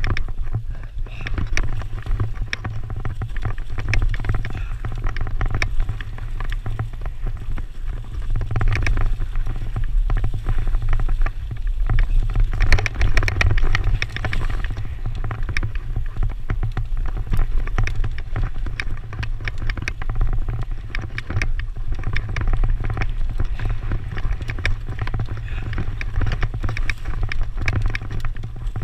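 Mountain bike ridden along a leaf-covered dirt trail: tyres rolling over dirt and dry leaves, with dense rattling and clicking from the bike over bumps, under a heavy steady low rumble of wind buffeting the microphone. A louder, busier stretch comes about halfway through.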